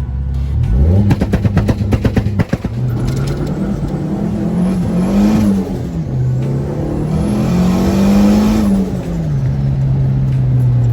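Turbocharged 1.6 Corsa pickup engine revved up about half a second in. It stutters on the pre-cut rev limiter (pré-corte) with a rapid string of cracks for about a second and a half, then revs up and down twice more and settles back to idle.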